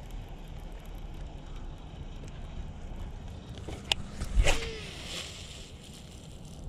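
A baitcasting rod and reel being cast: a sharp click about four seconds in, then a brief swish. The cast ends in a backlash. Low wind and water noise underneath.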